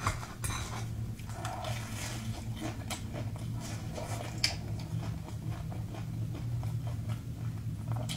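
Chopsticks cutting into and tapping against crumb-coated fried cakes in a ceramic bowl, with a few sharp clicks among softer scraping and handling noises, and a bite into the crisp crust near the end. A steady low hum sits underneath.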